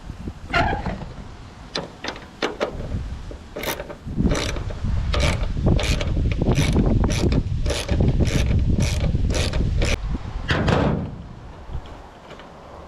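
Hand ratchet wrench clicking in a steady back-and-forth rhythm of about three clicks a second, after a few scattered clicks, as a fastener holding the plastic cladding is worked loose.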